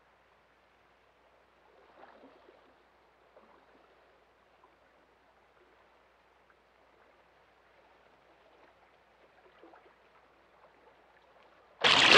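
Muffled, faint underwater sound with a few soft gurgles, close to silence for most of it. Near the end it cuts suddenly to loud rushing, splashing river water at the surface.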